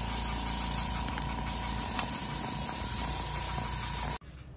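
Gravity-feed paint spray gun hissing steadily as compressed air blows through it, cutting off sharply about four seconds in as the trigger is released. A low steady hum from the air compressor runs underneath.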